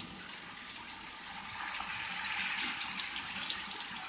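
Heavy wind-driven rain from a violent thunderstorm, a steady hiss of pouring water that swells slightly about a second and a half in, with scattered small taps.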